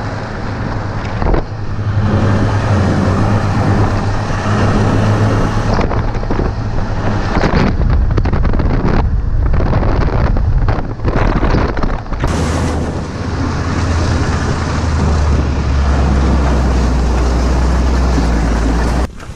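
Ski-Doo Skandic 900 ACE snowmobile's three-cylinder four-stroke engine running while riding, with wind rushing over the microphone. About twelve seconds in, the engine note drops lower and holds steady.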